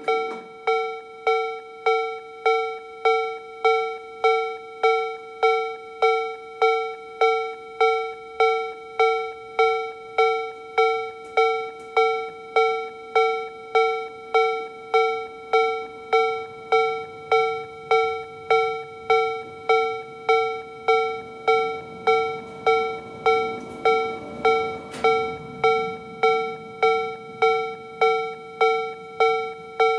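Japanese railway level crossing alarm from a Toho Denki Kogyo TA3-VR electronic alarm sound generator, playing the slow-tempo Tobu-style B/C tone. It is an evenly repeating bell-like "kan" with about one and a half strikes a second, each ringing out and fading. It plays at its reduced volume, which the generator drops to once the crossing barrier has come down past 85°.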